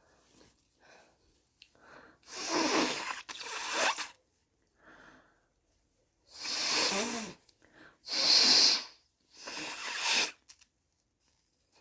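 Loud nasal bursts from a person with a very snotty nose: five, each about a second long, two close together and then three more.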